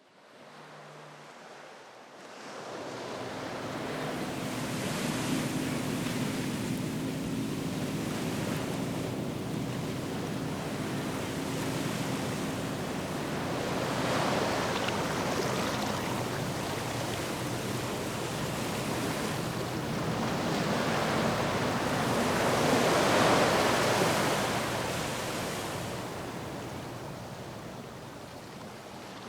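Sound-effect ocean surf with wind: a steady wash of waves that fades in, swells twice as waves break, and thins out toward the end. A faint low steady hum runs under the first half.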